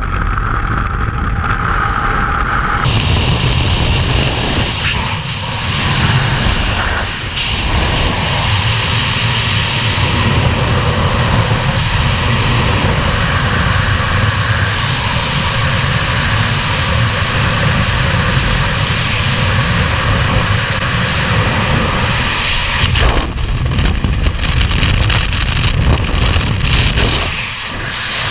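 Freefall wind rushing over a skydiver's helmet-mounted camera microphone: a loud, steady rush that dips briefly a few times as body position changes. A high whistle sits over it for the first three seconds and then stops suddenly.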